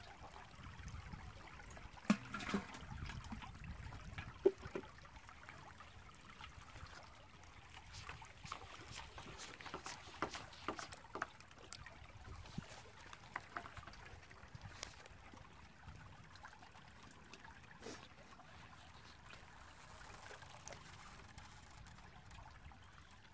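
Water splashing and trickling as it is scooped and tossed with a plastic mug in shallow floodwater, with scattered light clicks and knocks, busiest in the first half.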